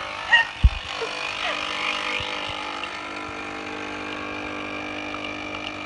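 Single-serve coffee machine's pump running steadily, brewing an espresso, with a short thump about half a second in.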